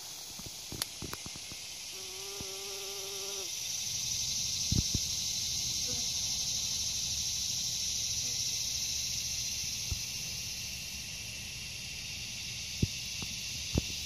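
Steady high-pitched insect chorus that swells after a few seconds. There is a short steady hum about two seconds in, and a few soft knocks.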